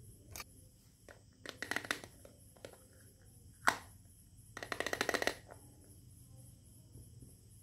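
Small plastic toy kitchen pieces handled: two bursts of rapid plastic clicking and rattling, with a single sharp click between them.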